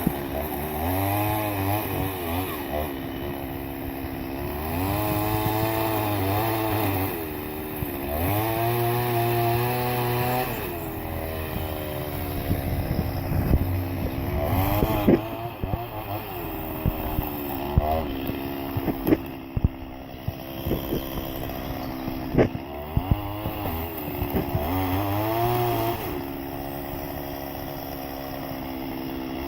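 Chainsaw engine revving up and dropping back several times as it cuts. In the middle stretch there is a series of sharp cracks or snaps.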